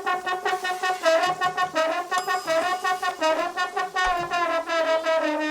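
Trombone played as a comic sound effect: a quick run of short notes, several of them sliding in pitch.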